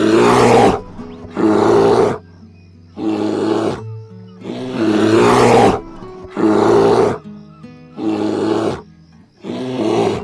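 A large animal roaring again and again, seven rough roars of about a second each, one every second and a half or so, over steady background music.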